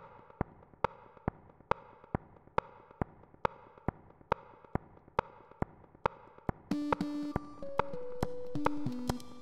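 Electronic film score: a steady ticking pulse, a little over two clicks a second, over a faint held tone, joined about two-thirds of the way through by louder synthesizer notes stepping through a slow melody.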